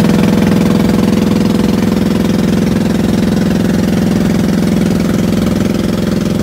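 Engine of a small wooden passenger boat running steadily under way, heard from on board as a loud, even drone.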